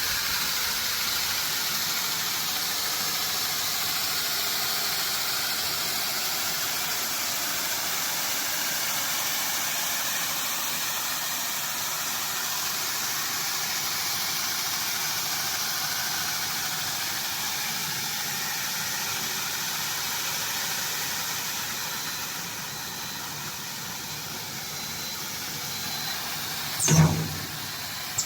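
Aluminium flexible duct forming machine running with a steady, high-pitched mechanical noise. A single loud knock comes near the end.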